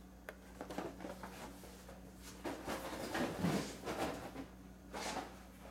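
Carded action-figure packages, cardboard backs with plastic blister bubbles, being handled and shuffled: a run of irregular crinkles, rustles and light knocks, loudest about three to four seconds in.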